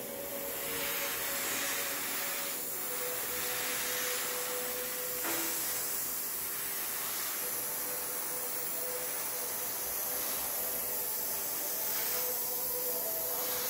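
Gravity-feed airbrush spraying paint thinned with lacquer thinner: a steady high hiss of compressed air.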